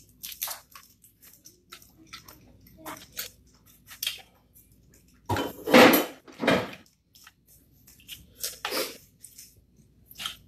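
Eating at a table: scattered clicks and crunches of food being picked apart by hand and chewed, with plate and utensil clatter, and a louder crunching burst about halfway through.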